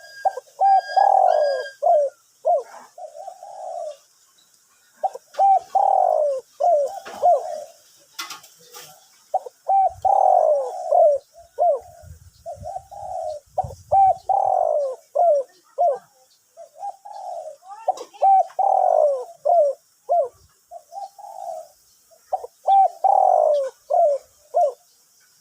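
Spotted dove cooing its song over and over, a phrase of several coo notes about every four seconds. It is a deep-voiced bird of the 'two-kook' song type, a young male just beginning to sing.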